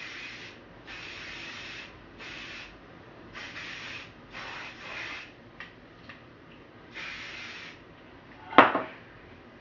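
L'Oréal Lock It Bold Control aerosol hairspray sprayed over hair in about six short bursts of hiss. A single sharp knock near the end.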